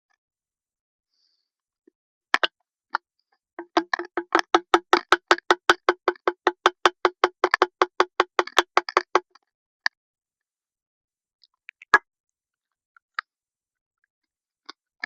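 Soda glugging as it is poured from an aluminum can into a bottle: a quick, even run of gurgles, about five a second, lasting some five seconds. A few separate clicks come before and after, with one sharp knock near the end.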